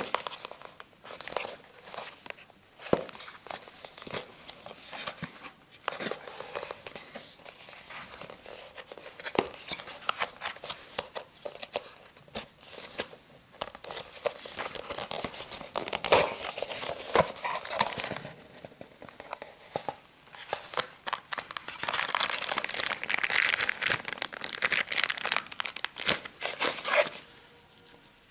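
Cardboard box and plastic packaging being handled by hand: irregular crinkling, rustling and small clicks and scrapes as the box is opened and its contents unpacked. A denser run of crinkling comes near the end and then stops.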